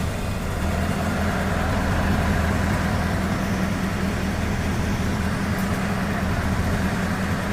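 Scania R620 16-litre V8 truck engine idling steadily through its modified exhaust, fitted with custom tips and an exhaust diffuser. The low, even engine note holds without revving.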